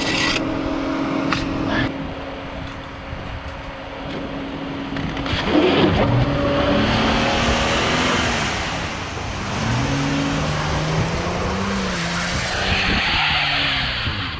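Delivery van's engine running steadily, then from about six seconds in revving up and down with a loud hiss of the wheels spinning in snow as the van tries to get unstuck.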